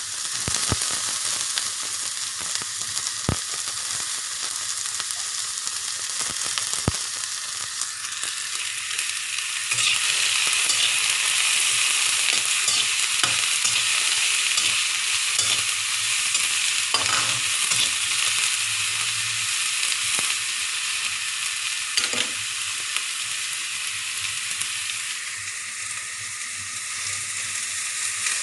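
Cauliflower and carrots sizzling as they are stir-fried in oil in a pan, a steady high hiss with a few sharp knocks of stirring now and then. The sizzle grows louder about ten seconds in.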